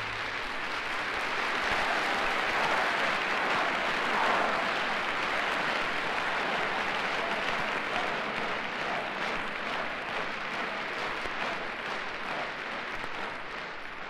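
Large concert audience applauding after the final song of a live stereo vinyl recording. The applause swells over the first few seconds, then slowly fades.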